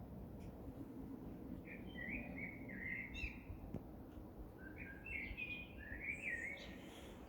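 A songbird singing two quick warbling phrases of chirps and whistles, the first starting about a second and a half in and the second about four and a half seconds in. A steady low background hum runs underneath.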